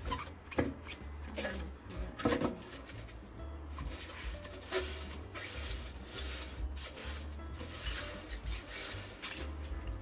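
A rag pushed by a stiff stick scraping and rubbing in the gap at the edge of a front-loader's stainless-steel washing machine drum, with scattered sharp clicks, as built-up grime is worked out of the gap. Soft background music plays under it.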